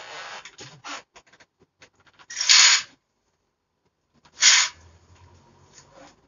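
Two loud, breathy exhales close to the microphone, about two seconds apart. Each lasts about half a second. Before them there is light rustling of the handheld phone.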